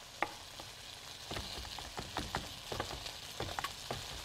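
Chef's knife chopping fresh flat-leaf parsley on a cutting board, an irregular run of sharp taps. Potatoes sizzle faintly in a frying skillet underneath.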